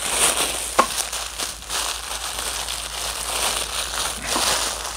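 Plastic packaging crinkling and crackling as hands twist and pull at a stiff, hard-to-open plastic packet, with a sharp crackle about a second in.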